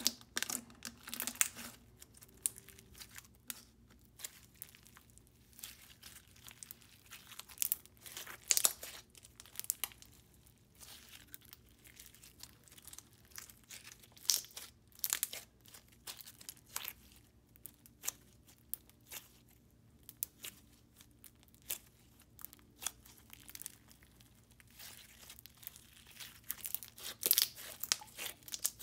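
Ultra-clear crunchy slime with foam beads being squeezed and poked by hand, giving irregular crackling, popping crunches, with a few louder bursts now and then.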